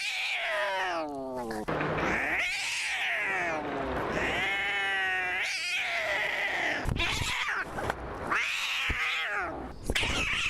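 Domestic cat yowling: a string of long, drawn-out calls, about six, each rising and falling in pitch, following one another with short breaks.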